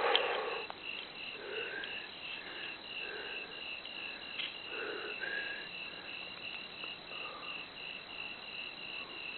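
Cricket chirping steadily, about three short high chirps a second.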